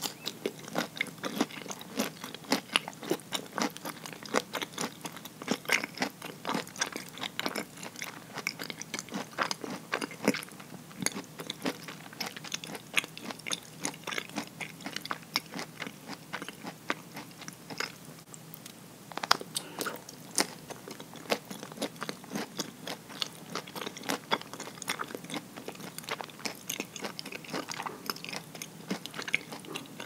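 Chewing of nama habutae mochi, a soft rice cake, topped with chopped walnuts: a steady run of small crunches as the nut pieces are bitten down. The crunching eases briefly a little past halfway, then picks up again with a few sharp crunches.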